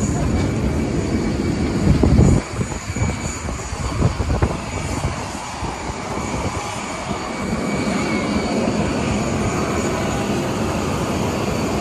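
Steady whine of parked jet airliners on the ramp, with thin high tones over a running rush of engine noise. A heavy low rumble fills the first two seconds, then cuts off abruptly.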